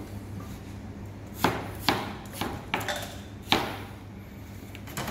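Chef's knife knocking on a plastic cutting board while cutting potatoes into wedges: about five sharp knocks over two seconds, over a steady low hum.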